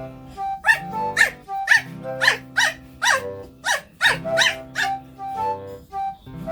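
A young puppy giving a quick run of about nine short, high yips, each one falling in pitch, over background music.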